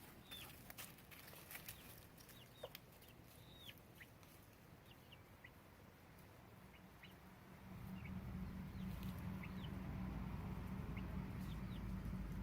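Backyard chickens calling softly: scattered short, high, downward-sliding peeps and clucks. About eight seconds in, a steady low rumble comes in and stays.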